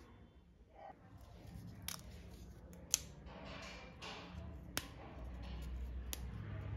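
Crisp deep-fried murukku, a spiral of rice and urad dal dough, cracking as it is broken apart by hand: four sharp snaps about a second apart, with brittle crackling between them.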